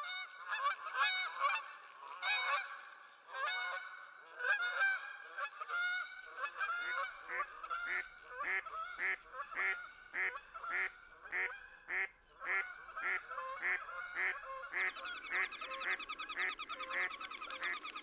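A flock of trumpeter swans honking, many calls overlapping at first, then settling into a more regular run of honks about two a second. Near the end a different, rapidly pulsing call takes over.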